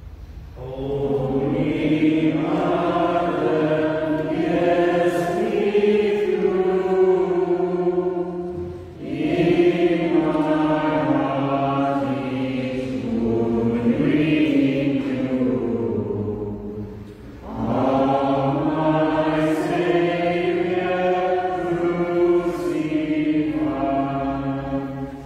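A slow, chant-like hymn sung by voices in three long phrases, with short breaks for breath about nine and seventeen seconds in.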